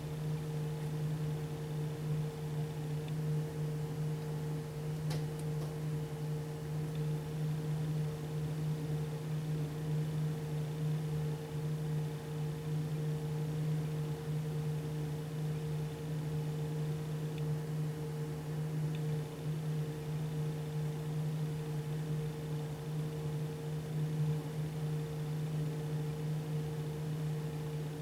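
Steady machine hum with a low tone and a fainter higher tone over a light hiss, unchanging throughout.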